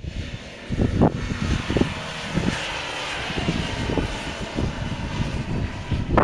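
Nissan Patrol's engine running under load as it climbs a steep sand dune: a steady distant drone, with wind gusting on the microphone.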